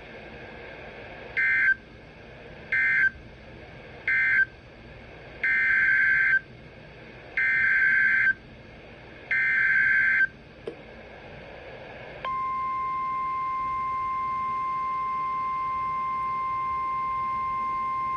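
NOAA Weather Radio EAS/SAME alert data. Three short warbling data bursts mark the end of the previous message, then three longer data bursts carry the header of the next alert. About twelve seconds in, the steady single-pitch 1050 Hz weather radio warning alarm tone begins and holds.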